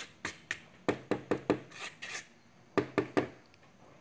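Silicone spatula scraping creamed butter and sugar down the sides of a mixer bowl: a string of short scrapes and light knocks against the bowl at irregular intervals.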